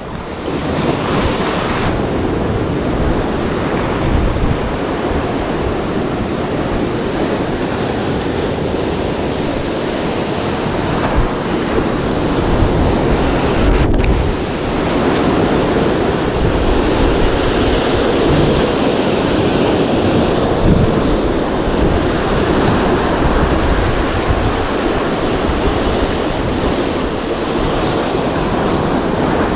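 Heavy ocean surf breaking and washing over a rocky reef shore, a steady loud churning rush, with wind buffeting the microphone.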